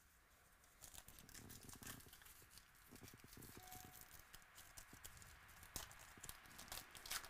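Foil wrapper of a trading-card pack being torn open and crinkled by hand: faint crackling and tearing, with a few sharper crackles near the end.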